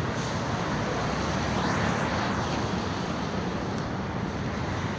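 Road traffic noise, with a vehicle passing about two seconds in.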